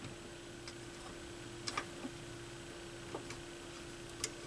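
A few light, irregular clicks and taps of small turntable parts being handled, the strongest a quick pair about halfway through, over a faint steady hum.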